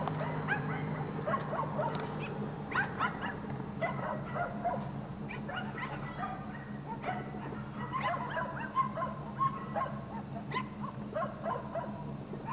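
Many dogs in stacked wire kennel cages barking at once: short barks overlapping without a break, over a steady low hum.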